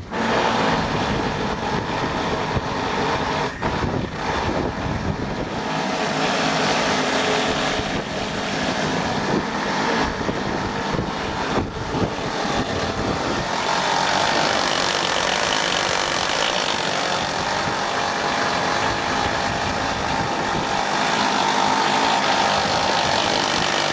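Land Rover-mounted winch running steadily under load, paying out cable to lower a church bell; it starts suddenly and keeps up an even mechanical drone.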